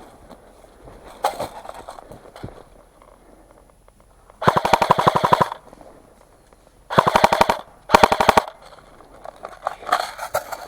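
Airsoft gun firing on full auto in three short bursts of rapid, evenly spaced shots: a longer burst of about a second a little before the middle, then two shorter ones close together. Softer rustling and knocks come between them.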